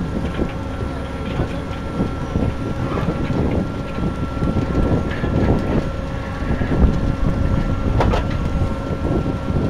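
Sugar beet cleaner-loader running and taking in beets from a pile, with a steady mechanical noise and a faint whine over it. Beets tumble and knock in the pickup, with one sharp knock about eight seconds in.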